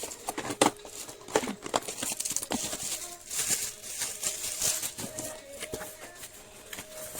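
Plastic parcel packaging being handled and opened: irregular crinkling, rustling and tearing with scattered clicks.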